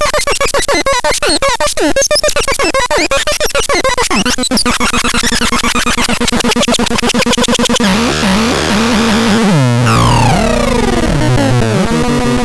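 Synthesizer sound demo: a harsh, rapidly pulsing tone with repeated falling sweeps, turning about halfway into steadier buzzing pulses, then stepping bass notes under long downward-gliding tones near the end.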